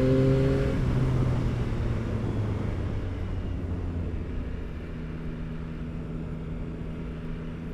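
Yamaha R9's inline-three engine through an Akrapovic exhaust, finishing a pull in gear and then going off the throttle: the engine note falls as the bike slows and settles into a steady lower note by about five seconds in. Wind rushes over the helmet microphone throughout.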